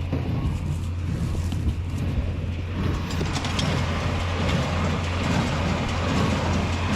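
John Deere 4020 tractor engine running steadily under a constant low hum, with a fuller, busier mechanical noise coming in about three seconds in.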